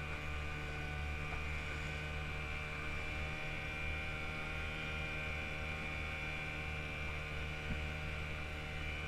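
A steady mechanical drone: a constant low hum with a thin, unchanging high whine over it.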